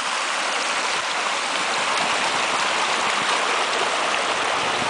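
A small rocky stream rushing over stones in a low cascade, a steady, even rush of water.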